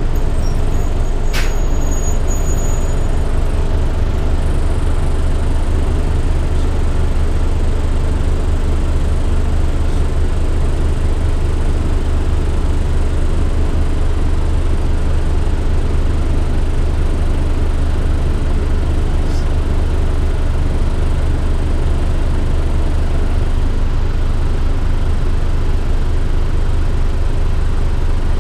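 Steady low rumble of a 2003 Gillig Advantage transit bus's engine and drivetrain heard from inside the passenger cabin, with one sharp click about a second and a half in.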